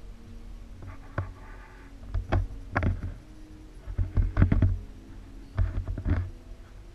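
Knocks and low thumping from a handheld camera being carried while walking, in several short clusters, over a faint steady hum.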